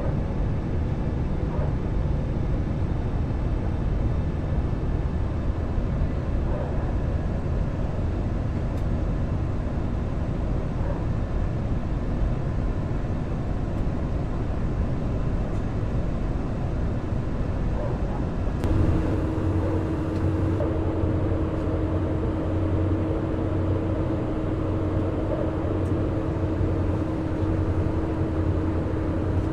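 Cabin noise of an Airbus A320 in flight: a steady rush of engines and airflow, heaviest in the low end. About eighteen seconds in, the sound changes abruptly and a steady low hum joins it.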